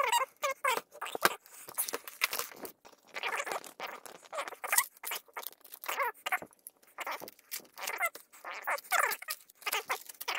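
Plastic parts of an LCD monitor's housing and mounting bracket squeaking and creaking in quick, irregular bursts, with sharp clicks, as they are worked loose by hand.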